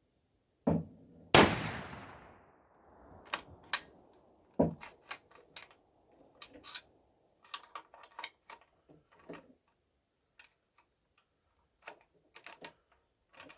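A single rifle shot from a .45-70 Mauser-action rifle, just after a thump, with the report echoing away over about a second and a half. It is followed by many clicks and clacks of the bolt being worked over and over as it struggles to feed from the magazine, which the shooter thinks is the blunt-nosed .45-70 bullet catching on the feed ramp.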